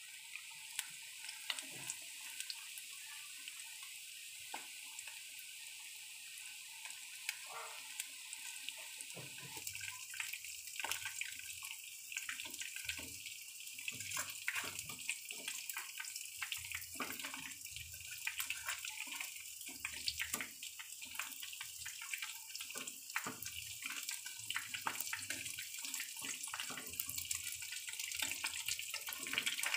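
Battered chicken pieces deep-frying in hot oil in a pan: a steady sizzle with crackling pops, growing busier and louder about nine seconds in.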